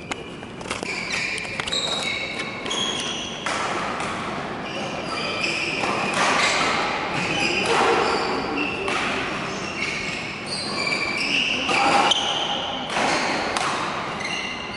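Badminton rally on an indoor court: sharp racket strikes on the shuttlecock and many short, high-pitched shoe squeaks on the court floor, over background voices.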